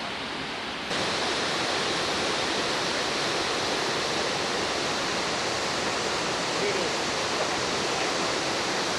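Steady rushing of running water, like storm runoff pouring down, with no distinct events. It gets louder about a second in.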